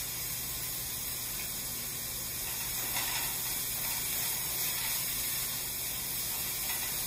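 Chopped carrots, leeks, celery and garlic sizzling steadily in oil in a stainless steel sauté pan.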